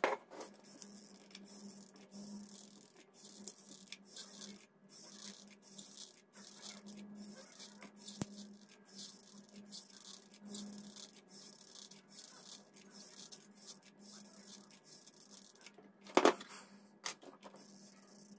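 Faint clicks and handling noise from a hot glue gun being worked over a plastic circuit-board housing, over a steady low hum. A single sharp click comes about eight seconds in, and a louder clatter near the end.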